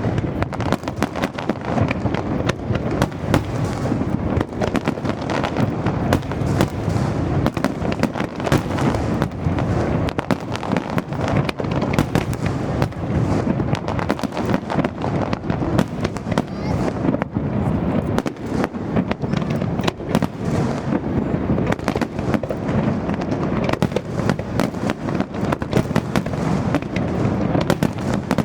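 Aerial fireworks display: a dense, unbroken run of bangs and crackles with no pause.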